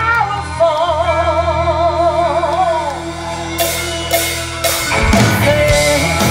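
Live band playing: a woman sings a long held note with a wide vibrato over guitars, then the drum kit comes in with cymbal crashes about three and a half seconds in and heavy kick-drum hits shortly after.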